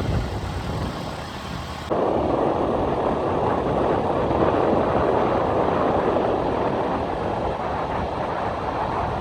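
Motorcycle running on the move, a steady mix of engine and wind noise, with an abrupt jump in level about two seconds in.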